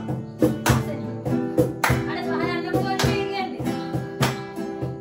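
Acoustic guitar strummed in a steady rhythm, with loud hand claps on the beat about once a second and a voice singing along.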